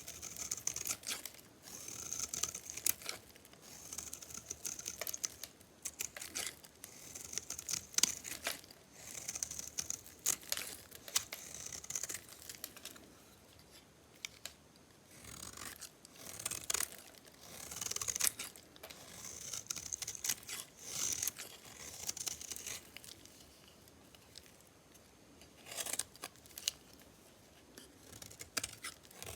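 A knife cutting into dry, hard soap: crisp, scratchy slicing strokes, one every second or two, with a couple of short pauses.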